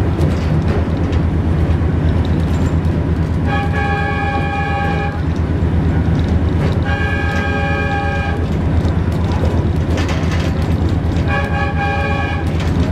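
Three blasts of an AS1000 diesel railcar's multi-tone horn, each a little over a second long and a few seconds apart, sounded as a warning while the train runs on track laid in the street. Beneath the blasts runs the steady low drone of the railcar's diesel engine, heard from inside the car.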